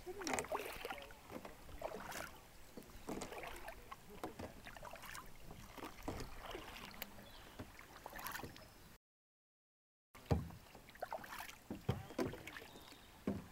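Canoe paddles dipping and pulling through lake water, with splashes and drips every couple of seconds. The sound cuts out completely for about a second partway through.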